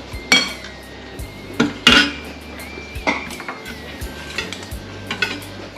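Utensils clinking against plates and bowls: about five sharp clinks with a short ring, the loudest about two seconds in.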